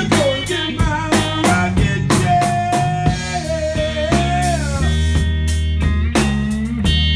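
Live blues-rock band playing: electric bass and drum kit keep a steady groove, with a bending melody line held for about two seconds midway.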